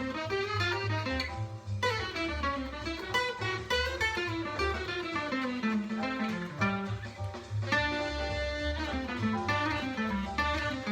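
Acoustic archtop guitar (a 1938 Epiphone Deluxe) playing a fast single-note jazz line, a transcribed tenor saxophone solo, with notes running up and down in quick succession.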